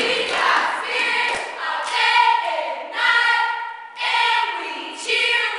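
A group of girls chanting a cheer in unison, in rhythmic phrases about a second apart.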